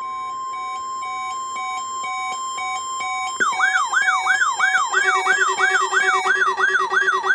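NOAA Weather Radio's steady 1050 Hz warning alarm tone, with an alert receiver beeping about twice a second over it. About three and a half seconds in, a siren-style alarm takes over, wailing rapidly up and down about three times a second, and a lower pulsing tone joins it about a second later: alert devices set off by the weekly test of the warning alarm.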